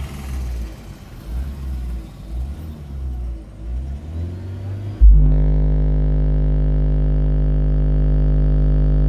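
Ind Audio BL1 12-inch subwoofers, driven by an Ind Audio UM 2000.1 amplifier, playing a 50 Hz test tone for a sound-pressure-level test in a car cabin. After a few seconds of uneven low rumbling, a loud, steady, buzzy deep hum starts suddenly about five seconds in and holds, reading about 147 dB on the meter.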